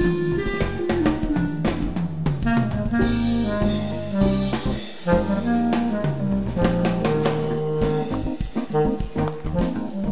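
Bb clarinet playing a jazz melody line over a samba backing track with drums.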